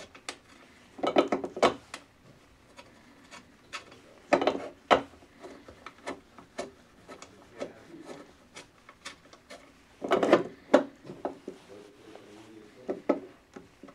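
Aluminium LED street light housing and its pole-mount fitting being handled and fitted together by hand: scattered metal clicks and light knocks, with three louder clusters of knocking and rubbing, about a second in, near the middle and about ten seconds in.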